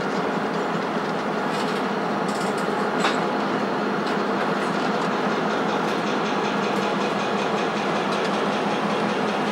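Diesel locomotives, including an ex-Burlington Northern GP38-2, rolling slowly past with their engines running and wheels clicking over rail joints. A sharp click stands out about three seconds in.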